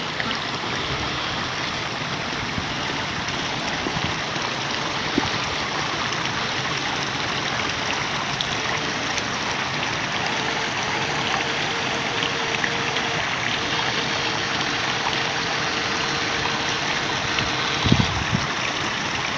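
Water sloshing and swishing around legs wading through a shallow ditch. A faint steady hum comes in about halfway through and stops with a thump near the end.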